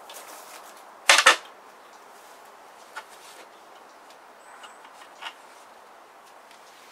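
A tray set down on a small wooden folding table: a short clatter of two or three sharp knocks about a second in, followed by a couple of faint clicks as small items are handled.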